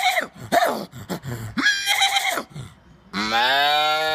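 A man's voice imitating animal calls: a few short yelping, dog-like calls, then about three seconds in a long, low, steady drawn-out call.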